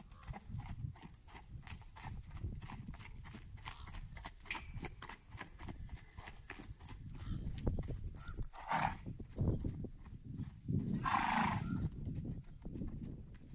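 Hoofbeats of a loose horse trotting and cantering on sand footing: uneven low thuds with many small clicks. Two louder rushes of noise stand out about nine and eleven seconds in.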